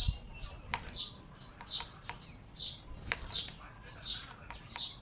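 A small bird chirping over and over, short falling chirps about twice a second, with a few sharp taps as it pecks at its reflection in a motorcycle's mirror.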